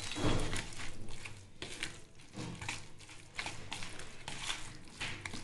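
A spoon stirring a moist grated cucumber and mango pickle in a plastic bowl, giving irregular scrapes and strokes.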